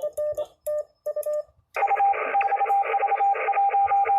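Morse code (CW) tones from an amateur radio. A lower tone is keyed in dots and dashes for about a second and a half. After a short break, a higher tone keys over steady receiver hiss.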